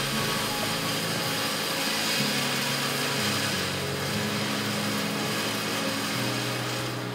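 Steady power-tool noise, like machining or grinding on cylinder-head castings, with a low hum underneath that shifts pitch every second or so.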